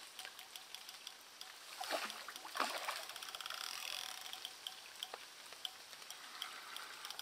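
Water splashing at the lake edge from a small hooked carp thrashing during the fight, with two louder splashes about two seconds in and fainter trickling around them.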